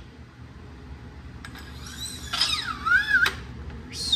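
A high whistle, about a second long, begins about two seconds in: it falls steeply, then wavers. Light metal clinks come from the parts of a coilover spring compressor being handled.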